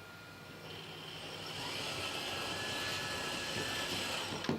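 1:14-scale RC hydraulic excavator running, its electric hydraulic pumps and drive giving a steady whine that swells after about half a second. A sharp click comes just before the end.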